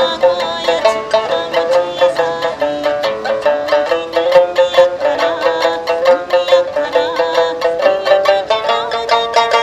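Sanshin, the Okinawan three-stringed lute, playing an Okinawan folk tune as a quick, steady run of plucked notes.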